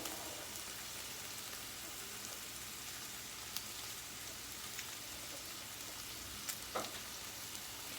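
Chicken tenders frying in a pan, a steady sizzle with a few faint clicks in the second half.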